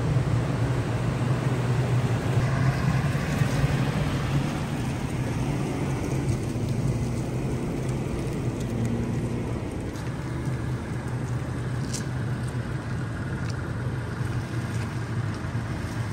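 Toyota Tacoma pickup's engine running, a steady low hum with no change in pitch.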